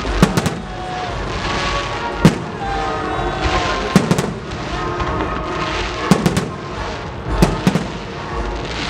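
Aerial firework shells bursting in a fast display, sharp bangs coming in quick pairs every second or two, with a crackling hiss between them.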